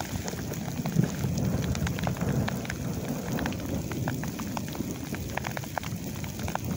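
Light rain falling: scattered drops ticking close by at irregular intervals over a steady low hiss.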